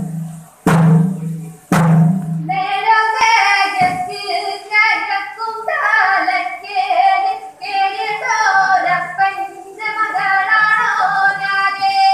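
Two sharp strokes on a chenda drum, then a group of children singing together, ending on a long held note.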